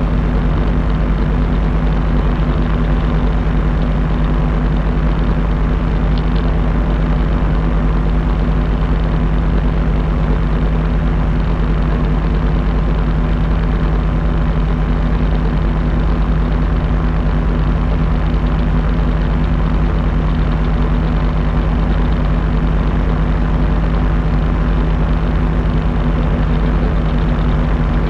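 Paramotor's propeller engine running at a steady speed, an even drone that does not rise or fall.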